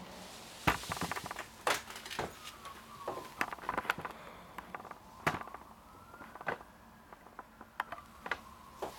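Handling noise from a camera being moved and set in place: scattered sharp clicks and knocks with fabric rustling. The loudest knocks come just under a second in and about five seconds in.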